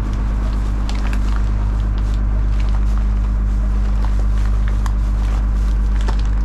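Plastic trash bag crinkling and crackling as bare feet tread on it to compress the trash, over the steady low drone of the boat's engine.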